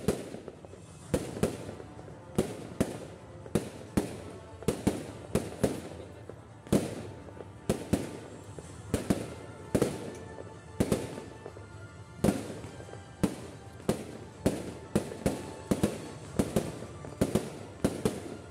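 Aerial firework shells bursting in quick succession, about two sharp bangs a second, each trailing off briefly before the next.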